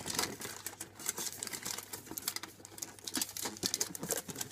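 Aluminium foil crinkling and crackling in quick, irregular bursts as it is folded and pressed around a cardboard box.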